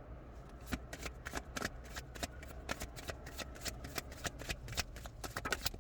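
A deck of tarot cards being shuffled by hand: a rapid, irregular run of crisp card snaps and flicks.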